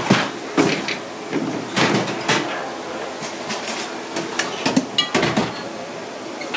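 Irregular knocks and clanks on a stainless steel sink and metal bowl as a live coconut crab is handled, its shell and legs striking the metal. One knock about five seconds in rings briefly.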